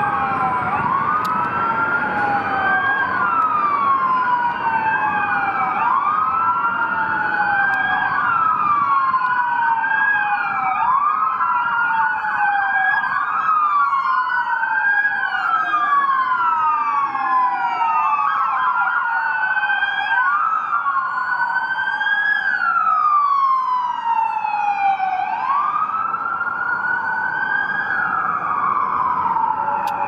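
Several police car sirens sounding together from a convoy of patrol cars, each a slow wail that rises and falls every couple of seconds, the sirens overlapping out of step with one another.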